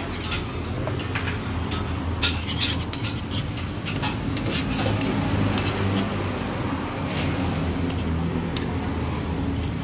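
Large kitchen knife chopping a thick, crisp-fried martabak on a wooden cutting board: irregular sharp knocks as the blade cuts through and strikes the board.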